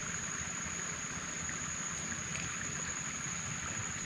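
Steady swamp ambience: an unbroken high insect drone over an even hiss, with a faint low rumble underneath.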